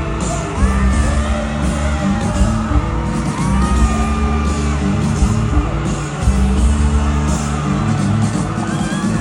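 Loud amplified live concert music with a heavy bass line and singing, over a crowd yelling and whooping.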